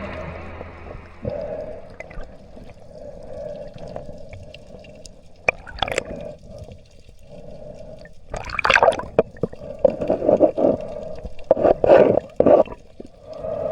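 Water splashing and gurgling at the surface, with a steady hum underneath. There is a single splash about six seconds in, then a run of louder splashes and sloshes in the second half.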